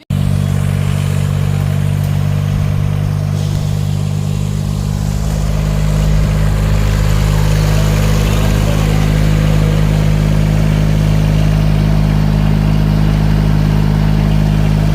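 A large engine running steadily at a constant speed, a low, even hum that grows slightly louder about six seconds in.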